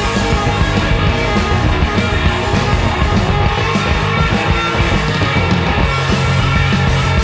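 Live hard rock band playing loudly: distorted electric guitar and bass over driving drums, in an instrumental passage without singing.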